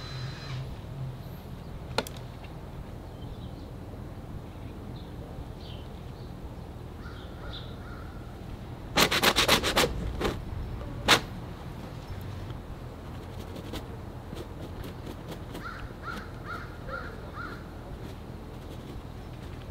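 Outdoor ambience of small birds chirping over a steady low rumble. About nine seconds in comes a loud burst of harsh, rapid rasping lasting about a second, followed by a single sharp knock.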